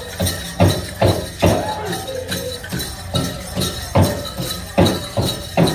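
Powwow drum group playing a chicken dance song: strong beats on a big powwow drum a little under a second apart with the singers' voices, and the dancers' bells jingling.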